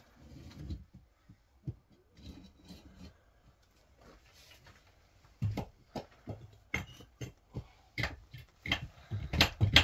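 Repeated sharp knocks from building work, a tool striking the block wall or the wooden roof beams. They start about five seconds in at roughly two a second, then come faster and louder near the end.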